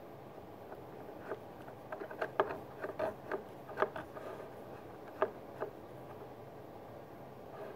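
A dozen or so sharp, uneven clicks of a Wismec Predator 228 box mod's fire button being pressed, bunched in the first few seconds with two more a little later. The mod reads 0.00 ohms and does not fire: an atomizer short.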